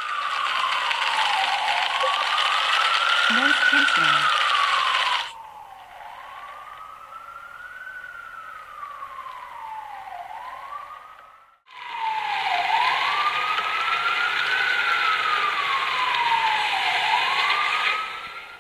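An emergency-vehicle siren wailing, rising and falling about every four seconds, over a loud hiss of street noise. From about five seconds in, the level drops suddenly: the hiss is mostly gone and the siren is quieter, as heard through earbuds with noise cancelling on. Near the end of the twelfth second the full noise cuts back in.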